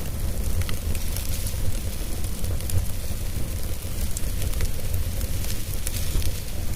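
Wood fire in a fireplace crackling, with many small irregular pops over a steady low rumble of the flames.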